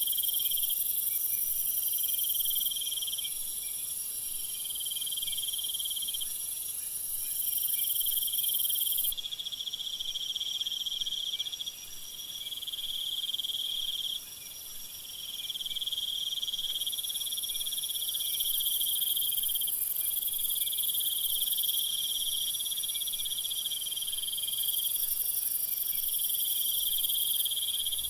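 Meadow insects trilling in overlapping high-pitched phrases of a second or two each, over a steady high hiss.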